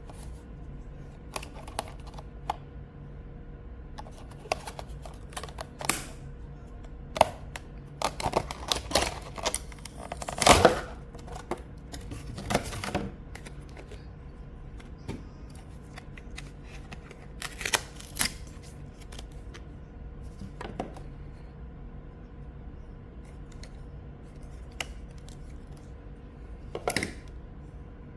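Mechanical keyboard and keycaps being handled, making scattered, irregular plastic clicks and clacks in small clusters, the loudest near the middle, over a faint steady hum.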